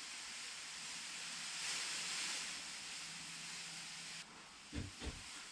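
A steady hiss swells in the middle and cuts off abruptly, followed near the end by two soft, dull knocks.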